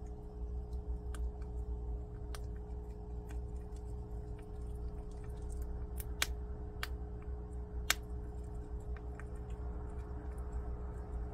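Prairie dog cracking hard wild soybeans with its teeth: irregular sharp clicks and cracks, the loudest about six and eight seconds in, over a steady low hum.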